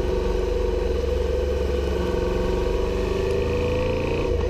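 2019 Suzuki SV650's 645 cc V-twin engine running steadily at low revs as the motorcycle is trail-braked into a corner, over a constant low rumble. The engine pitch rises slightly near the end.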